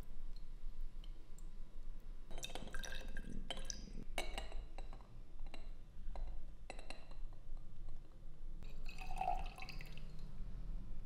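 Small hard objects clinking and light liquid sounds in about six short bursts, as slow-rust bluing solution is handled. A steady low hum runs underneath.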